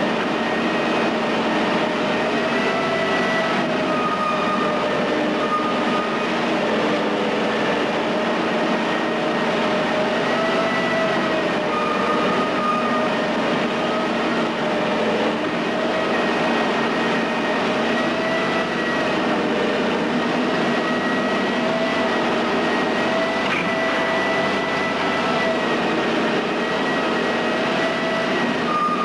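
Menck cable-operated crawler excavator working, its engine and drive running steadily with a wavering whine over the machinery noise.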